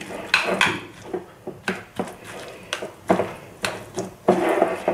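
A metal spoon stirring grated radish and mayonnaise in a glass bowl, with irregular clinks and knocks against the glass and a soft scraping of the wet grated radish between them.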